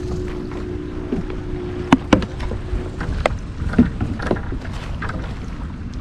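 Wind rumbling on the microphone over a kayak on open water, with a steady hum that stops about three seconds in. Several sharp knocks and taps sound in the middle, from handling on the kayak.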